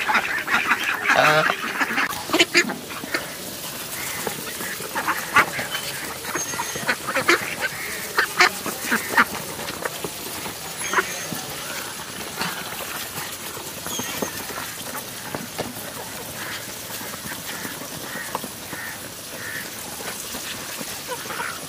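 Flock of Khaki Campbell ducks quacking as they feed on paddy grain, with a goose honking now and then. The calls are loudest in the first couple of seconds; after that many short clicks of bills pecking in the feed bowls run through the scattered quacks.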